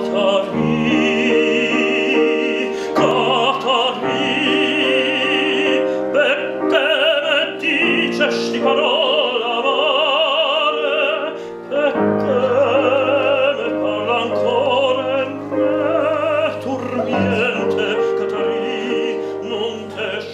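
Male operatic tenor singing an aria with wide vibrato, in full voice, over piano accompaniment, with short breaths between phrases.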